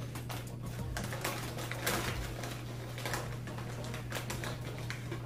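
Crinkly plastic snack bag of pork rinds rustling and crackling as a hand digs into it, with dense, irregular crackles.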